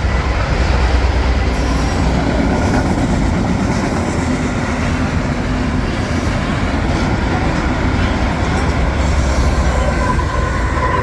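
Norfolk Southern freight train's autorack cars rolling past, a steady loud rumble and rattle of steel wheels on the rails.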